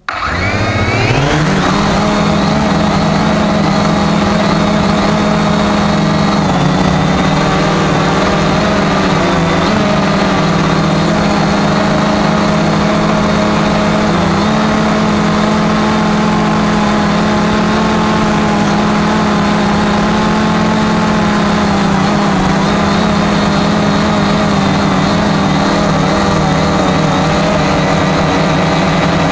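Cheerson CX-20 quadcopter's electric motors and propellers spinning up, their pitch rising over the first second or so, then running at a steady hum with a high whine.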